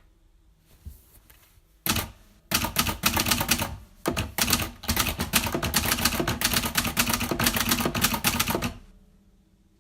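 Typewriter keys striking in a fast, dense run of clacks. It starts about two seconds in, pauses briefly twice early on, and stops near the end.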